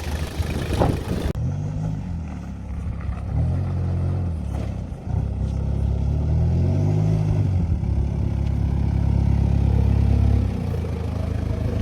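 Toyota Prado's 1KZ-TE four-cylinder turbo-diesel engine pulling on a drive, its pitch rising and dropping back several times as it revs up through the gears, then running steadily near the end.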